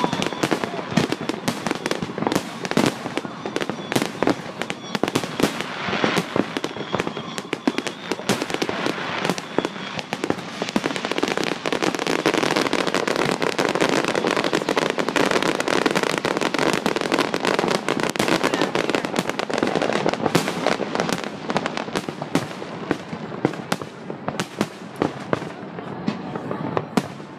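Aerial fireworks display: shells bursting in a near-continuous barrage of overlapping bangs and crackle, thinning a little near the end.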